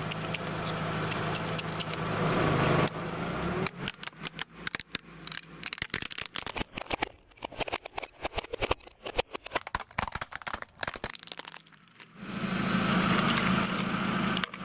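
Something being crushed by a running machine: a steady machine hum, then a run of sharp crackling and snapping for several seconds, then the steady hum again.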